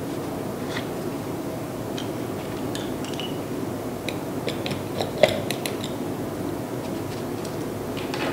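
Steady low background noise with a scatter of small, light clicks and taps of small hard objects being handled, bunched near the middle, the sharpest about five seconds in.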